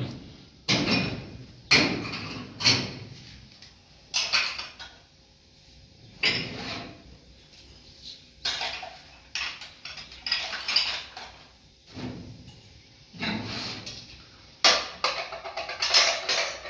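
Irregular clattering knocks, about a dozen, of hard objects being handled and set down, some with a short ring.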